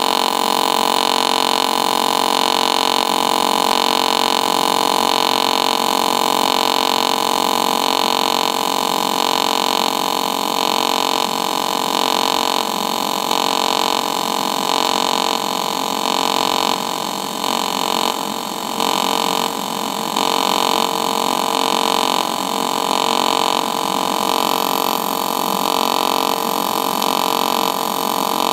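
DC TIG welding arc from an HTP Independence 210 AC/DC running double pulse: a steady buzz from the 50 Hz high-speed pulse, swelling and easing a little under once a second with the 0.8 Hz low-speed pulse.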